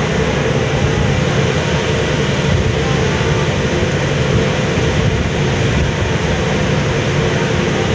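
Ferry's engines droning steadily from the stern deck, a constant hum over a low rumble, with the rushing wash of the churning wake.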